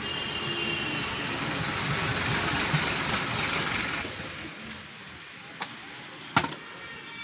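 A truck drives past close by. Its engine and tyre noise swell to a peak a few seconds in, then fade away. Near the end come two sharp knocks, the second one louder.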